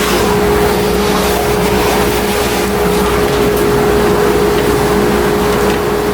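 CNC router running a cutting job: the spindle gives a steady, loud whine on one constant pitch over the noise of the bit cutting.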